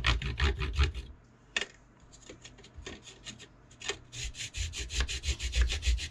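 Soft pastel stick rasped back and forth across the fine holes of a stainless steel cheese grater, grating it into fine pigment powder: a fast run of short scratchy strokes. It drops to a few scattered strokes for a few seconds, then picks up again with quick strokes near the end.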